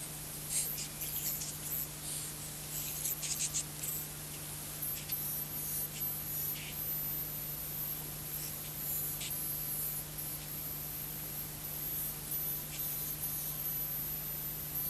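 Garbled sound of a scrambled analogue pay-TV broadcast taped on VHS: a steady low hum under hiss, with irregular scratchy crackles, densest in the first few seconds.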